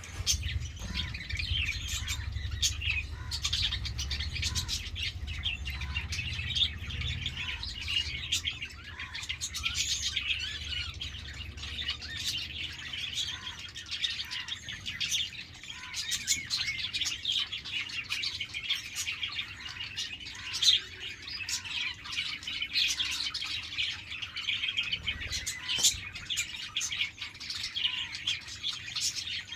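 A flock of budgerigars chattering continuously, many overlapping warbles and tweets at once. A low rumble sits under it for the first dozen seconds or so.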